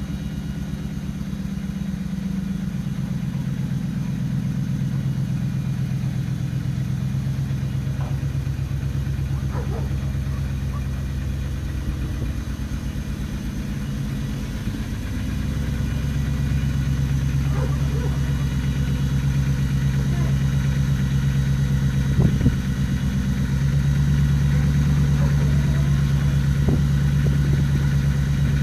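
Ford Lightning race truck's engine idling steadily. Its tone shifts and gets louder about halfway through, and again a little louder near the end.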